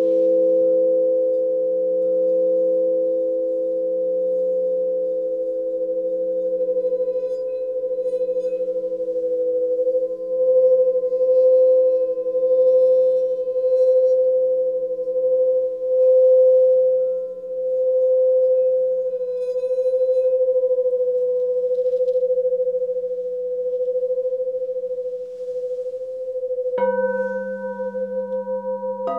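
Alchemy crystal singing bowls ringing with several steady, overlapping tones that pulse and swell slowly. Near the end a bowl is struck again and new tones sound over the others.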